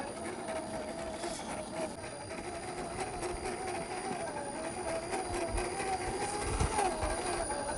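Stock electric motor and gear drive of an RC rock crawler whining as it crawls, the pitch wavering up and down with the throttle and load. A few low rumbles come in about two-thirds of the way through.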